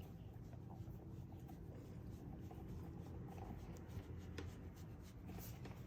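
A sleeping pet snoring faintly, a low breathy rasp that swells and fades gently.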